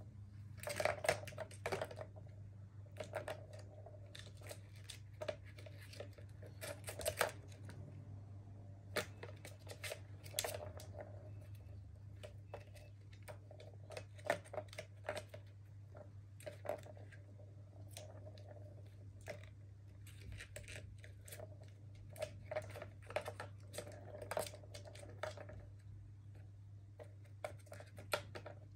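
Kittens batting at a plastic ball track tower: irregular clacks and rattles as paws strike the plastic rings and the ball rolls round the tracks, over a steady low hum.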